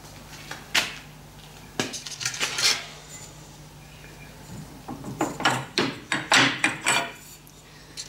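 Steel clanks and clinks from a Hossfeld-style tube bender and its steel tube being worked through a bend: a few sharp metal knocks in the first three seconds, then a quick run of clanks about five to seven seconds in.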